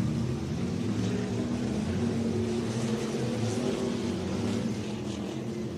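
Several winged crate sprint cars' V8 engines running at racing speed, their overlapping engine notes forming a steady drone that eases a little after about five seconds.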